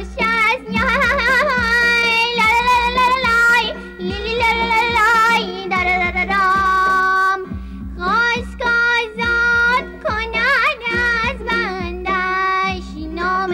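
Children's song: a high voice singing a melody with strong vibrato over backing music with a steady low beat and a held bass note.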